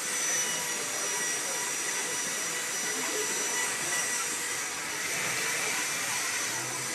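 Handheld corded electric die grinder running steadily at high speed with a high whine, used to carve a block of ice.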